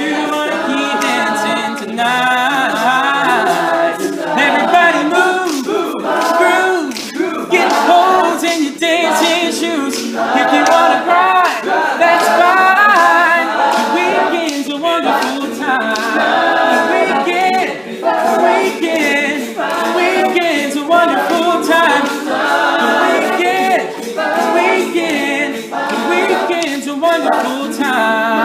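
An all-male a cappella group singing in layered harmony, with vocal percussion keeping a steady beat.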